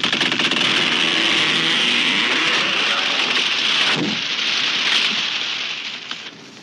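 A tree coming down: a long, loud rushing crash of branches and leaves, with a thump of impact about four seconds in, dying away near the end.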